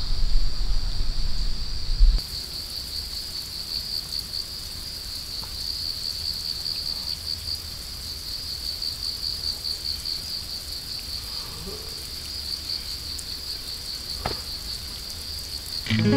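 Insects chirping in a steady, fast-pulsing high trill. Wind rumbles on the microphone for the first two seconds.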